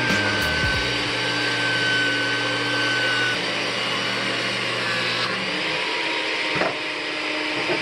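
An electric motor running steadily with a faint whine, its pitch shifting slightly about five seconds in, and a brief knock a little later.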